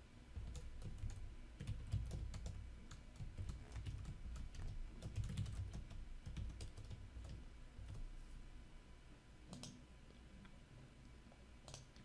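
Typing on a computer keyboard: a fast run of key clicks with a low thudding under them, which eases off after about eight seconds, followed by two lone clicks near the end.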